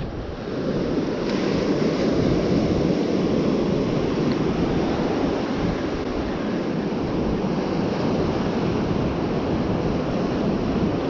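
Ocean surf breaking and washing up a sandy beach, a steady wash of noise.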